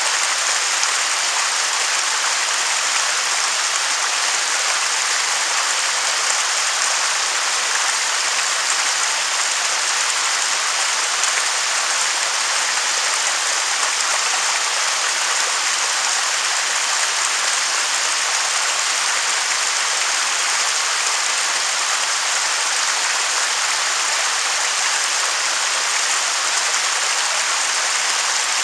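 Waterfall's water rushing steadily: an even, unbroken hiss, strongest in the upper range with little low rumble.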